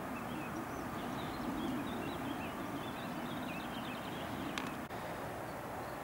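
Steady rushing of a waterfall's falling water. A small bird twitters over it in quick high chirps for the first few seconds, and there is a brief click near the end.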